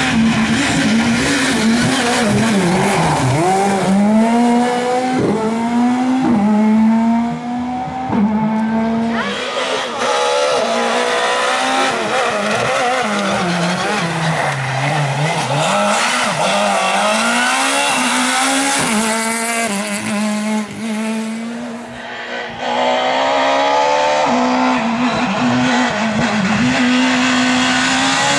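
Rally cars driven flat out on a stage: the engines rev up and drop back again and again through gear changes and lifts. The sound changes abruptly a few times, as one car gives way to another.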